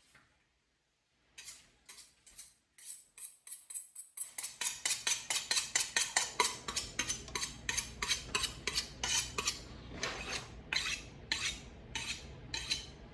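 Rhythmic clinking and scraping of a metal utensil against a dish, as in stirring or beating. It starts about a second in with scattered strokes, then settles into a quick steady rhythm of about four to five strokes a second from around four seconds in.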